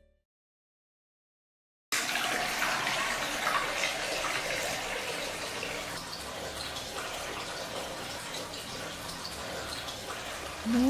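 Silence for about two seconds, then a bathroom tap running steadily into a sink.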